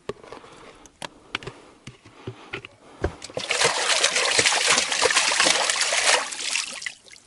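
Water splashing as a cutting board is rinsed. The splashing starts about three seconds in, runs for about three seconds and stops abruptly; a few light clicks and knocks come before it.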